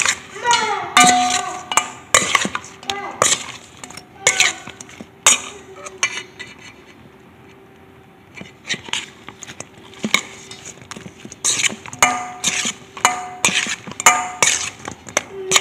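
Metal spoon scraping and clinking against a stainless steel mixing bowl as sauce-coated fried chicken pieces are tossed, in quick irregular strikes with a lull about halfway through.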